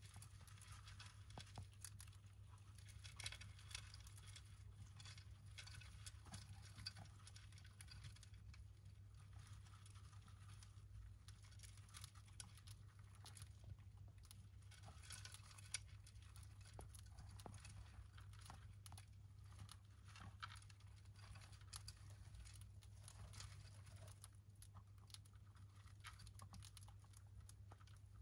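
Faint rustling and scratching of dwarf hamster pups shifting about in wood-shaving bedding and their dish, with scattered light clicks, over a low steady hum.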